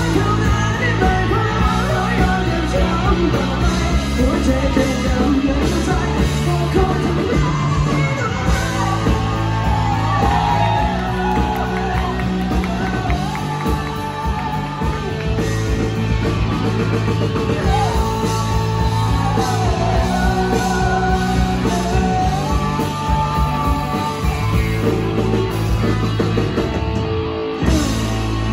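Live rock band playing loud: a singer over electric guitar, bass and drums.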